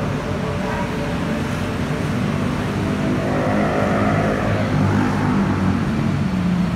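Steady low rumble of city road traffic, growing a little louder about halfway through.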